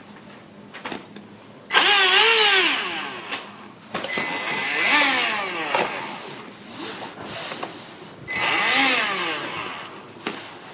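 Traxxas Monster Jam SonuvaDigger RC truck's electric motor and drivetrain revving up and down three times while the truck is held off the ground, with a grinding noise. The grinding comes with the fault in which the motor runs but the wheels often fail to turn.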